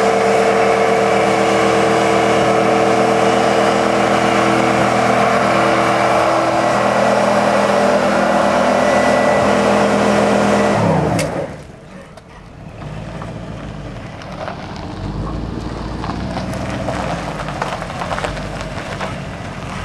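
Pickup truck's engine held at high revs in a burnout, the rear tyres spinning in the dirt. About eleven seconds in the revs fall away suddenly. The engine then runs lower and builds slowly again as the wheels keep spinning.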